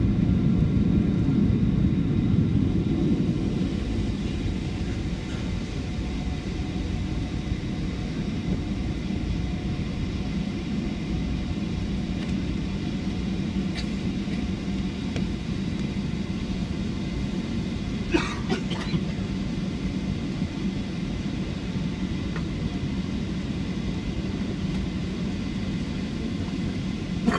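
Boeing 757 cabin noise heard from a window seat: a steady low rumble of the engines and airframe. It is louder for the first few seconds, then settles lower. A couple of brief rattling clicks come about two-thirds of the way through.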